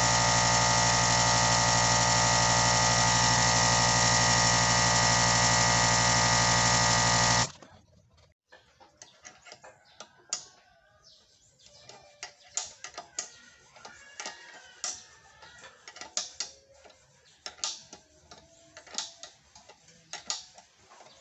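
Electric air compressor running steadily, then switched off abruptly about seven and a half seconds in, with the tank at 100 psi. After that, scattered light clicks and ticks of a wrench working the pressure switch's adjustment screw.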